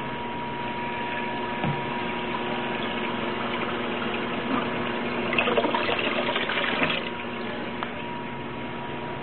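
Water splashing and gushing as a bowl of small live fish and water is poured into an aquarium, loudest for about a second and a half just past the middle, over a steady hum.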